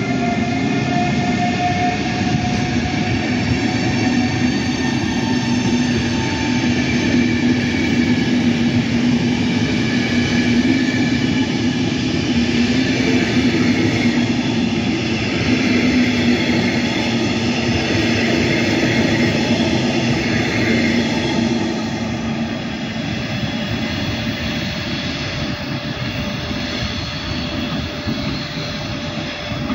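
Siemens class 183 (Taurus) electric locomotive hauling an alex train away, its traction converters giving several steady whining tones over the rumble of the coaches rolling on the rails. The sound drops a little after about twenty seconds as the train moves off.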